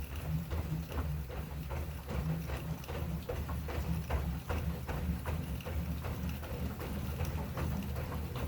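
Assault Runner Elite curved manual treadmill in use: rhythmic knocking and creaking from the slat belt and deck, about three strokes a second in time with the footfalls, over a steady low rumble of the moving belt. The creak is the unwanted noise the owner is showing.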